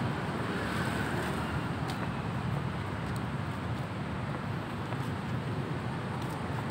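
Steady street traffic noise, an unbroken hum of passing cars.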